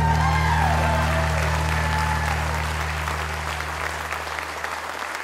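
Audience applauding at the end of a dance performance, while the last sustained chord of the music fades out over the first few seconds.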